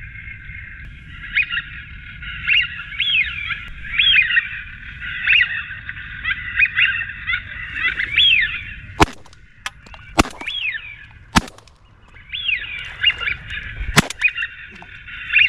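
Duck calls: a rapid, repeated quacking series that stops for about three seconds in the middle and then resumes. During the gap, four or five sharp cracks sound.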